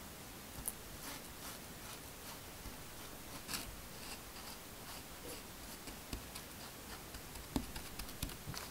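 Wooden spatula stirring and pressing buttered crushed Oreo crumbs: soft gritty scraping with scattered light clicks, and a few louder knocks near the end.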